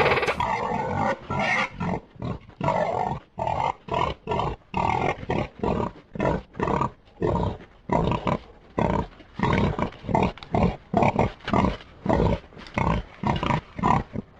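Creature sound effects built from animal and monster vocal recordings: one long roar at the start, then a fast string of short roars, about two a second.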